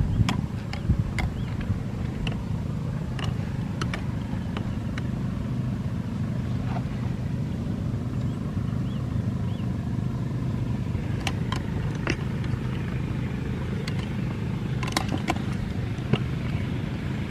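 Small boat engine running at a steady pace, with scattered sharp clicks and knocks over it.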